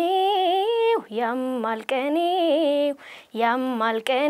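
A girl singing an Amharic song unaccompanied, in phrases about a second long with held, wavering notes and short breaths between them.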